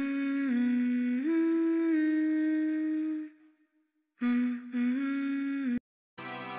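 A voice humming a few long, steady notes that step up in pitch, then a pause and a second short hummed phrase that stops abruptly. Quiet music begins near the end.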